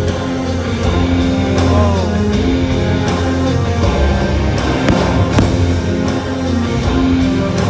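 Loud fireworks-show music with sustained bass notes, played over the park's sound system, with a few fireworks bursts audible through it.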